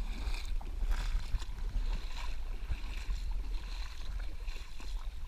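Boots wading and splashing through shallow, muddy water, in irregular sloshing steps over a steady low rumble.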